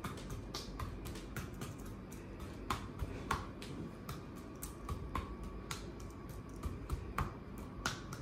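Percussive massage strikes with the palms pressed together, chopping on bare back and shoulders: a run of sharp, irregular claps, a few a second.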